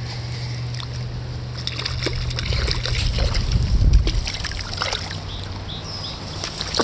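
Splashing in river water over the steady rush of the river, loudest about three to four seconds in: a just-caught trout being handled at the water.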